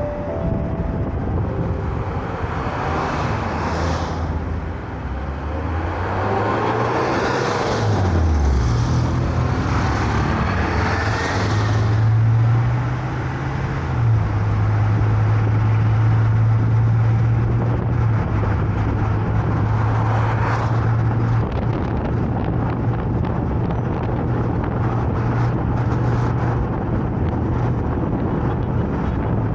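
Car driving on a road: a steady low engine hum under tyre road noise, its pitch dropping about a quarter of the way in and shifting again near the middle as the car changes speed. Other vehicles pass several times, each swelling up and fading.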